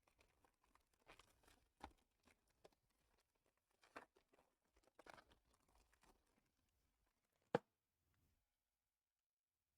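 Faint rustling and crinkling of trading cards and packaging being handled, with one sharp click about three-quarters of the way through, then near silence.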